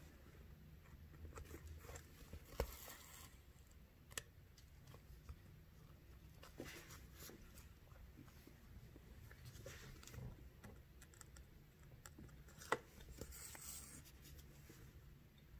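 Near silence with faint rustling and a few light ticks from hand beadwork, a needle and thread being worked through a beaded felt backing; two of the ticks are sharper.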